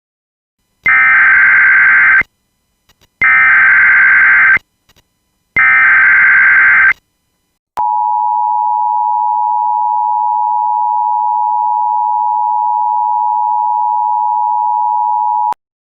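Emergency Alert System tones: three screeching SAME data-header bursts of about a second and a half each, then the steady two-tone attention signal held for about eight seconds, announcing a new alert.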